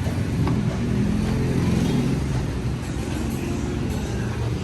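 A vehicle engine running, a steady low rumble with a faint hum.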